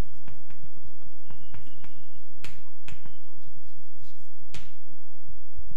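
Chalk tapping and scraping on a chalkboard while words are written, a string of irregular sharp clicks.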